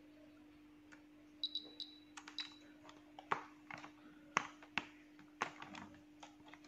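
Faint clicks and taps of multimeter test probes and leads being handled on a controller's screw terminals and a clamp meter. There are a few short high beeps about a second and a half in, over a faint low steady hum.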